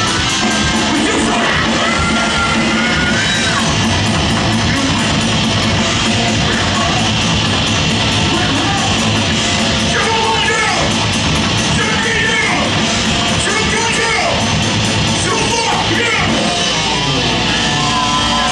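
Live heavy metal band playing loudly: distorted electric guitar and drum kit, with a vocalist yelling over the band, mostly in the second half.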